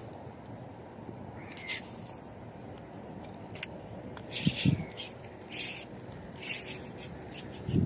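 Spinning rod cast and retrieve of a small frog lure: a short rising hiss of line leaving the spool about two seconds in, then the reel's scraping, rubbing noise in short bursts about once a second as the line is wound in, with a couple of low thumps.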